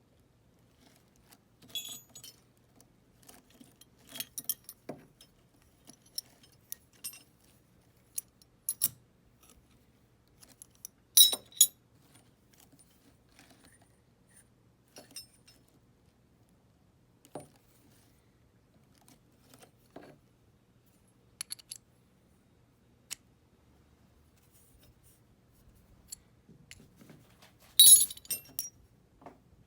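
Small metal hand tools from a motorcycle's on-board tool kit clinking and clattering as they are handled and set down, in scattered sharp clinks with louder clatters about a third of the way in and again near the end.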